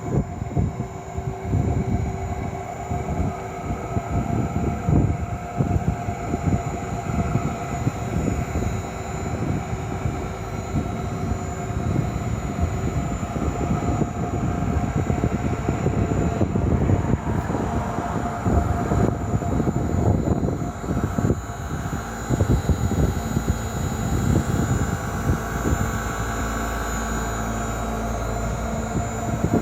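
Hitachi electric fan's motor running with an abnormal bearing noise: a steady whine over an uneven low rumble. The uploader puts it down to a poor-quality motor bearing, a common fault of these fans.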